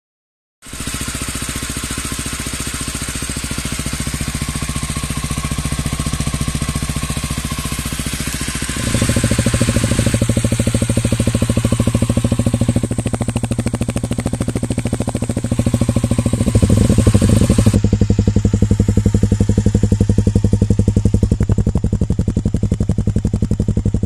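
SWM SM125R's 125cc single-cylinder four-stroke engine idling steadily, heard close to the exhaust outlet. Several recordings run back to back. About nine seconds in, the note turns louder and deeper, and it steps up again later on. At least part is through an Arrow aluminium full exhaust with its dB killer fitted.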